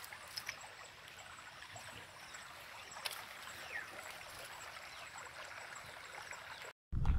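Steady outdoor background hiss with a few faint clicks, cutting off suddenly near the end.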